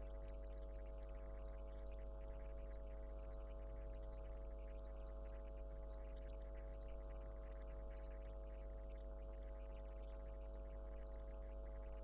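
Steady low electrical hum with a faint hiss above it.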